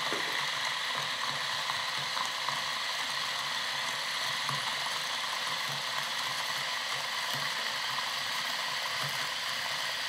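Option-O Lagom P64 electric coffee grinder with 64 mm Mizen flat burrs grinding a 20 g dose of beans at an espresso setting: a steady, quiet grinding sound.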